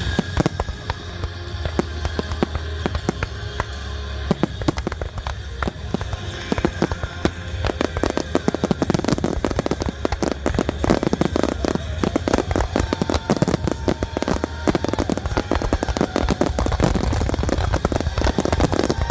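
Aerial fireworks in a rapid barrage of shell bursts and crackle, growing denser about halfway through, over show music with a steady bass.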